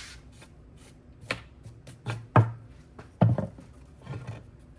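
Brush scrubbing grime off an old chainsaw's housing in about five short, irregular strokes, the loudest two near the middle.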